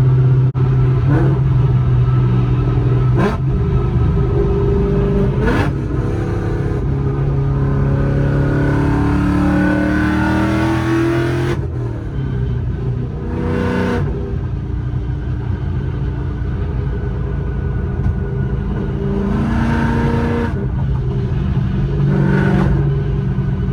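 2018 Ford Mustang GT's 5.0-litre V8 running through long-tube headers and a full exhaust, being revved and downshifted on the move: the engine note climbs steadily under acceleration about eight seconds in, with short sharp blips at several gear changes.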